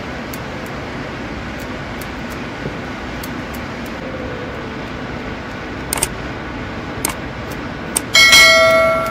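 Two mouse clicks a second apart, then a third click and a loud bell chime ringing out and fading near the end: the sound effect of a YouTube 'like, subscribe and ring the bell' overlay. Under it, a steady background hiss of workshop noise.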